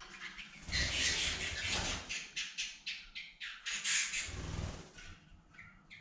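Canaries fluttering and calling, with two loud bursts of wing flapping, about a second in and again about four seconds in, and short chirps between them.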